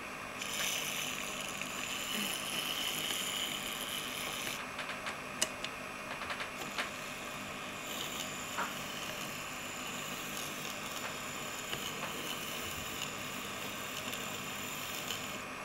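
Tiny electric motor and gears of a 1:76-scale radio-controlled model truck whirring as it drives. The motor runs for about four seconds, stops with a few light clicks, then runs again from about eight seconds in until just before the end.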